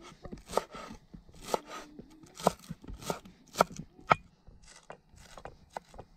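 Steel cleaver chopping green onions on a wooden cutting board, each stroke a sharp knock of the blade on the board, about two a second. The strokes get lighter and quicker near the end.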